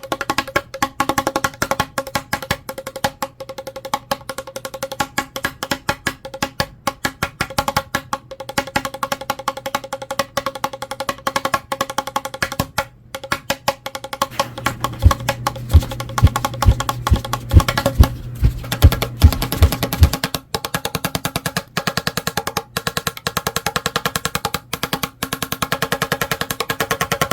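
Electric fan blades striking a cardboard tube: a rapid, continuous run of hard clicks over a steady hum. From about 15 to 20 seconds in, a string of heavier, deeper thumps joins the clicking.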